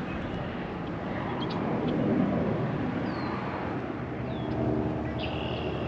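Outdoor ambience: a steady rushing noise that swells about two seconds in, with a few short falling bird chirps over it. A low droning hum comes in near the end.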